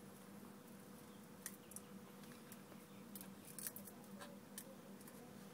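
Faint scattered clicks and ticks of an iPhone 4's front screen assembly being pried up off its metal frame, over a low steady hum.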